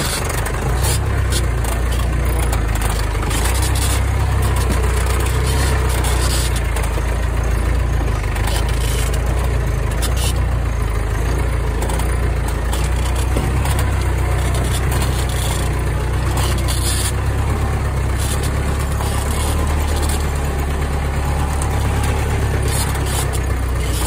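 A vehicle engine running steadily, with a heavy low rumble.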